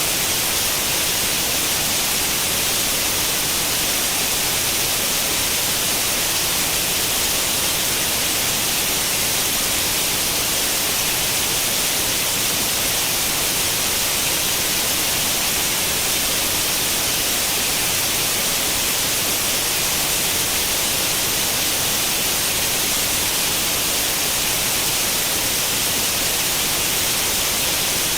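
Steady, unchanging white-noise hiss imitating the static of an old tube television with no channel tuned, brightest in the high treble.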